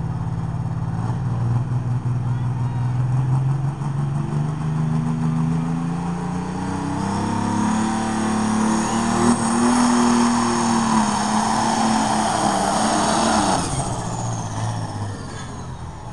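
Diesel engine of a modified AGCO DT200 pulling tractor revving hard on the starting line, its pitch climbing over several seconds with a high whine rising above it. Near the end the engine note drops sharply as the tractor launches and pulls the sled.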